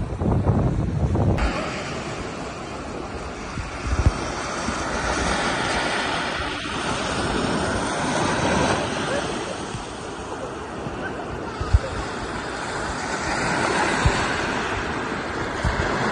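Small surf breaking and washing up on a sandy beach, swelling and fading every few seconds. Wind gusts on the microphone give a few short low thumps.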